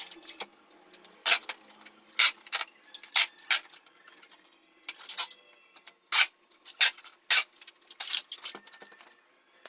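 Packing sounds: about a dozen short, sharp rustles and knocks at irregular intervals as the parcel and its wrapping are handled.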